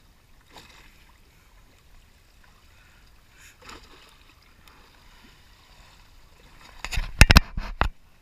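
Faint water lapping, with a few light ticks. Near the end comes a quick cluster of loud knocks and rubs on the camera as a calico bass is handled and lifted up to it.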